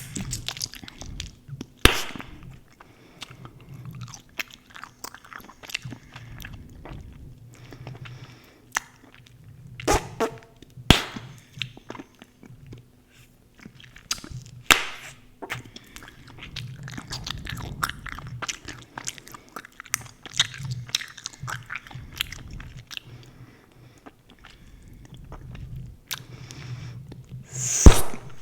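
Close-miked chewing gum: continual wet, sticky chewing, broken by a few loud sharp pops, typical of gum bubbles popping.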